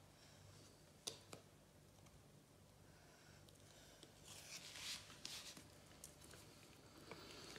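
Faint rustling of a paper sticker being handled and its backing peeled off, loudest about four to five seconds in, with two soft clicks about a second in.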